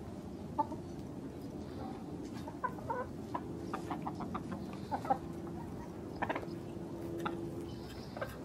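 Backyard chickens clucking, with short calls scattered through over a low, steady background of held murmuring notes.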